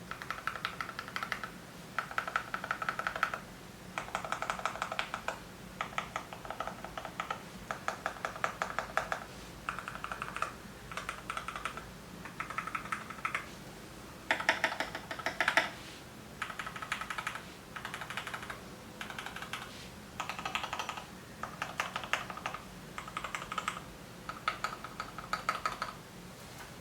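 Typing on a GMMK Pro mechanical keyboard with lubed and filmed Gateron Milky Yellow linear switches in black bottom housings, dampened by case and plate foam. Rapid keystrokes come in bursts of about a second each, with short pauses between them.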